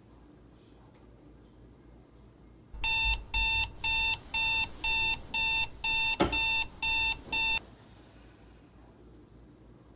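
Digital alarm clock beeping, about ten short beeps at roughly two a second, starting about three seconds in. A dull thump comes among the last beeps, and the alarm stops abruptly: it has been hit to snooze.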